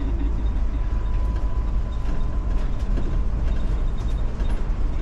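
Iveco Urbanway 12 city bus running, heard from inside: a steady, heavy low rumble of engine and road, with a thin steady whine above it and a few light rattles.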